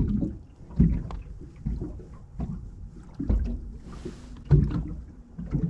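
Small waves slapping against the hull of a drifting fishing boat: irregular low thumps about once a second, with a brief hiss about four seconds in.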